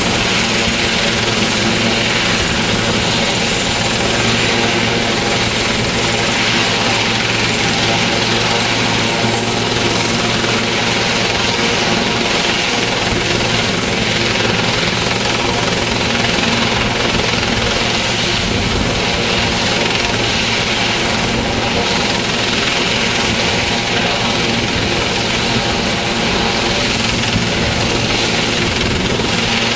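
Sikorsky S-76 helicopter running on the ground with its twin turbine engines and rotors turning: a loud, steady rotor and engine noise. Over it, a thin high turbine whine rises slowly in pitch through the first half, then holds steady, as the engines spool up before take-off.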